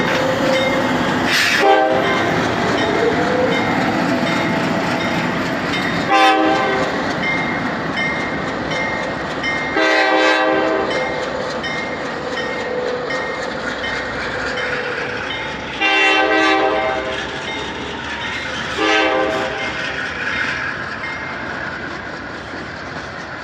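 Diesel locomotive engine running loudly under throttle, which the owner describes as a weird noise that comes with heavy smoke each time it revs. Five short, loud tonal blasts break in over the engine sound.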